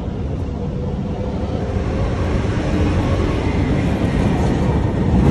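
Steady low rumble of a nearby train, growing gradually louder.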